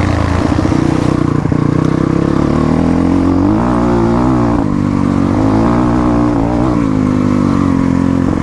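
Motorcycle engine running while riding, its revs rising and falling a few times in the middle.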